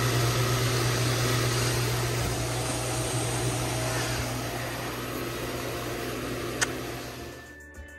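Swimming pool pump running steadily with a low hum, with a single sharp click about six and a half seconds in. The hum fades out near the end as music comes in.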